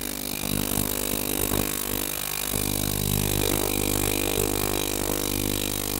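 Ultrasonic cleaning bath running: a steady buzzing hum under a hiss from the driven liquid. The low part of the hum fills in and steadies about two and a half seconds in.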